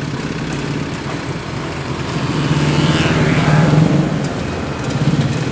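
Diesel dump truck engine running and revving up, getting louder from about two seconds in and easing off near four seconds, as the emptied tipper bed comes down and the truck pulls away over gravel.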